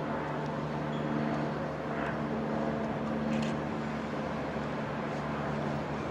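Electric locomotive hauling a train of vintage passenger coaches slowly along the station tracks: a steady hum with a few faint clicks.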